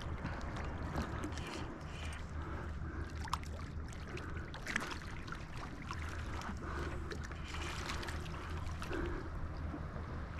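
Water sloshing and lapping around a wharf, with scattered light clicks and ticks. Near the end a hooked leopard shark splashes at the surface.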